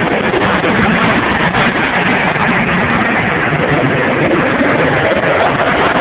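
Go-kart engines running on an indoor track, a loud, steady noise with no let-up.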